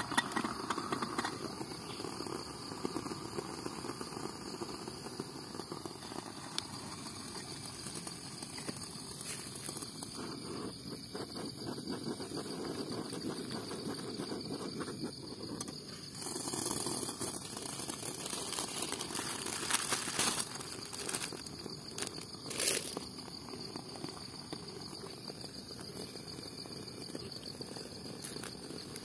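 Steady high-pitched insect chirring over the low hiss of a lit portable gas stove burner. Around the middle, water is poured from one small camping pot into another, with a louder splashing spell and a few sharp knocks of cookware.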